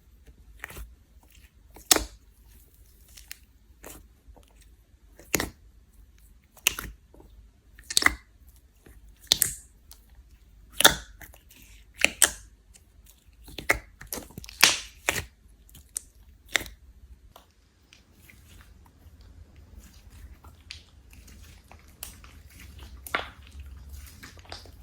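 Slime being squeezed and poked by hand, giving sharp, irregular pops and clicks about once a second, then softer, quicker crackling near the end.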